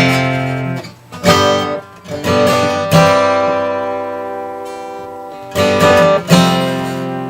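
Gibson Hummingbird acoustic guitar being strummed: a handful of chords struck in quick succession, with some left to ring out and fade for a couple of seconds.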